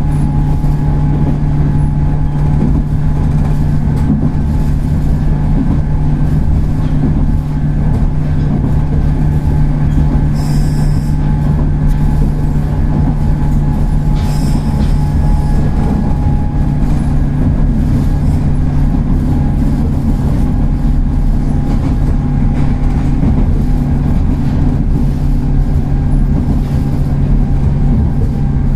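Running sound of a 103 series 3550 subseries resistor-controlled electric train under way: a steady low hum and rumble of wheels on rail. Brief high-pitched sounds come in about ten and fourteen seconds in.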